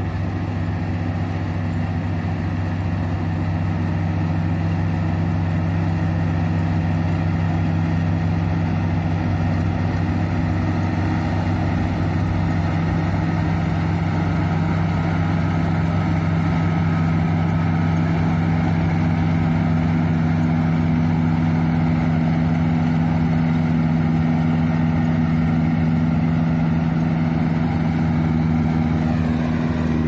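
Rice combine harvester's engine running steadily as the machine cuts rice: a steady, even engine hum that grows a little louder over the first few seconds.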